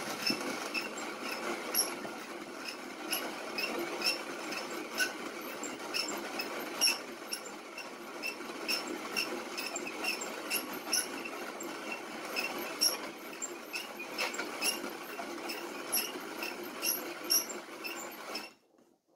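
Peugeot Frères hand-cranked coffee mill grinding coffee beans: a steady gritty crunching of beans being crushed in the burrs, with a regular squeaky click a little more than once a second as the crank turns. The grinding stops near the end.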